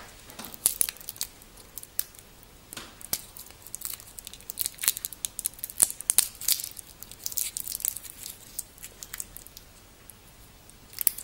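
Plastic protective wrap crinkling and tearing as it is pulled off a stainless steel watch bracelet: a run of quick rustles and sharp clicks.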